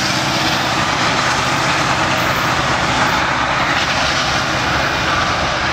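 Freight train of covered hopper cars rolling along the track behind a diesel-electric locomotive, its engine running under a loud, steady rumble of the train.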